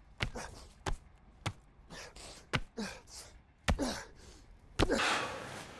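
A quick run of short sound clips cut one after another: a sharp click or knock about once a second, with brief gasps and breaths between them, and a longer breathy hiss near the end.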